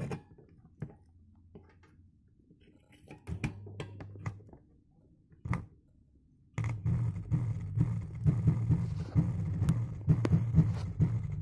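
Music played through a homemade 4558 op-amp low-pass bass circuit and amplifier, starting suddenly about six and a half seconds in: almost only deep bass comes out, pulsing, with the treble filtered away. Before it there are a few faint clicks and a low hum.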